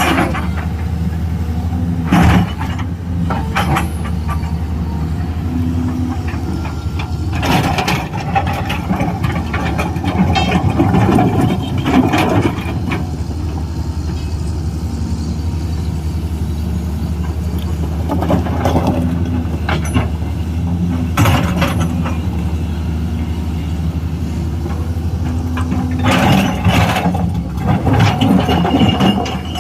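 Excavator's diesel engine running steadily, with short bursts of clanking and knocking every few seconds as the machine works.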